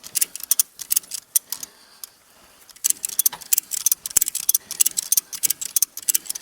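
Hand ratchet clicking at about five clicks a second as a hay load is cranked tight. It stops for about a second, about two seconds in, then starts again.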